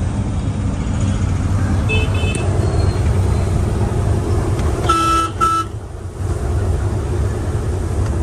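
Steady low rumble of a diesel truck's engine and tyres heard inside the moving cab. About two seconds in there is a short, faint horn toot, and about five seconds in two quick, loud horn blasts, one right after the other.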